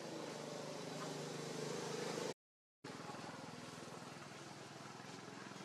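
A motor running steadily with an even pulsing hum. It drops out completely for about half a second a little over two seconds in, then carries on somewhat quieter.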